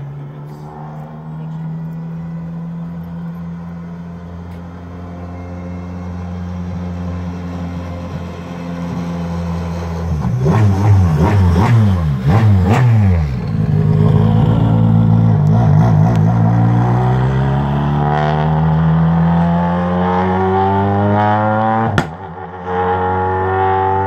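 Skoda Fabia R5 rally car's turbocharged 1.6-litre four-cylinder engine running steadily, then a burst of rapid throttle blips about ten seconds in, then the revs climbing steadily for several seconds. A sharp click near the end, where the sound briefly drops out.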